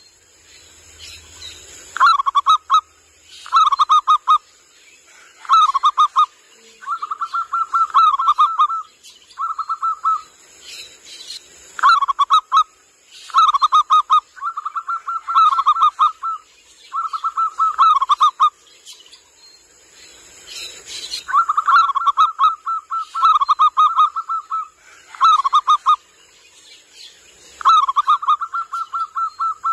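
Local zebra dove (perkutut) cooing: short, rapid rolling coo phrases repeated every one to two seconds, some drawn out into longer runs.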